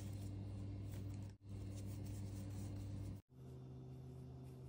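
Faint rubbing and rustling of a plastic fashion doll and its fabric and plush outfit being handled, over a steady low hum; the sound drops out for an instant twice.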